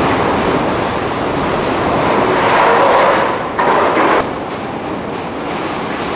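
Hurricane-force wind blowing hard and steadily with driving rain, with a brief louder gust about three and a half seconds in.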